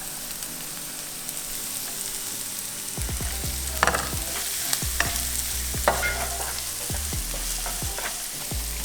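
Tempeh and baby corn sizzling in hot ghee in a frying pan. From about three seconds in, a spatula stirs them, scraping and knocking against the pan.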